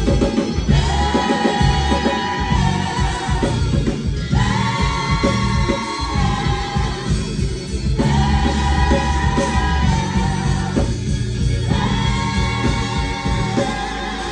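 Gospel choir singing with a live band, in four long held phrases over drums and bass. Near the end the voices stop and a steady instrumental tone carries on.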